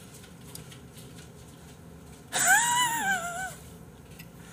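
A man's high, wheezy, squeaky laugh, one squeal a little over a second long that rises and then falls in pitch.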